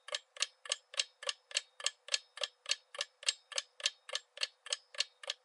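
Clock-ticking sound effect for a quiz countdown timer: even, sharp ticks at about three and a half a second, marking the time left to answer.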